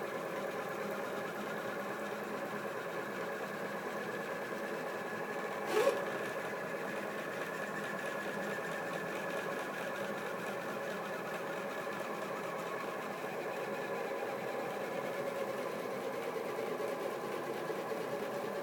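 Stepper motors of a Rostock delta 3D printer driving its carriages through G-code moves, a steady whine of several tones that shift slowly in pitch as the moves change. A single short knock sounds about six seconds in.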